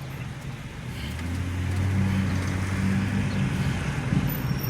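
Car engine and road noise heard from inside the cabin, a low steady hum that grows louder about a second in.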